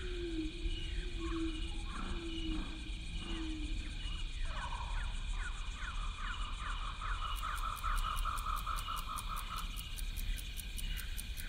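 Wild nature ambience of insects and animal calls: a steady insect drone with repeated chirping, several falling calls, and low calls in the first few seconds. A fast trill runs through the middle for about five seconds, and rapid fine ticking joins past halfway.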